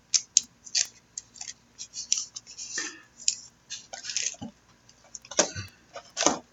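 Trading cards and their packaging being handled by hand: irregular light clicks and rustles, with a few fuller scrapes near the end.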